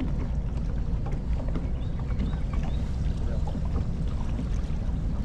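Steady low rumble aboard a fishing boat on the river, with scattered light clicks and taps.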